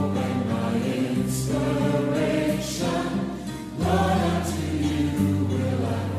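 Choir and congregation singing a praise-and-worship song in long held notes over instrumental backing, with a new phrase starting about two-thirds of the way in.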